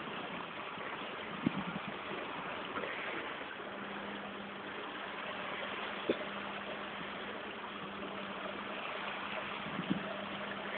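Indoor swimming pool ambience: a steady rush of water and air, joined a few seconds in by a low steady hum, with three brief knocks.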